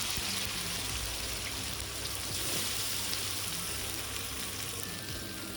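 Boiled potato pieces frying in hot oil in a large frying pan: a steady sizzle that eases a little toward the end.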